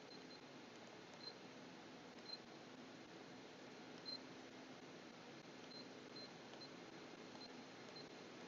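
Faint, short high-pitched key beeps from an IBA water tank's Smart Control Unit as its buttons are pressed to enter the chamber depth, irregularly spaced, several in all, over a low steady hum.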